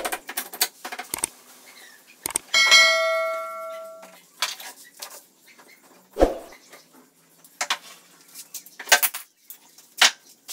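Scattered clicks and knocks. A few seconds in, something rings out in several pitches at once and fades over about a second and a half, and a low thump comes past the middle.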